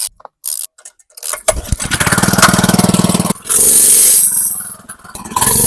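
Small Honda engine on a jumping-jack rammer catching about a second and a half in after a few clicks, then running and being revved up hard twice. It is starting and running after its carburetor was cleaned and its fuel line replaced.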